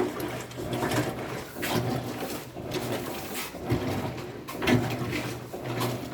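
Small washing machine agitating a soapy wash load, its motor hum swelling and fading in a steady rhythm about once a second.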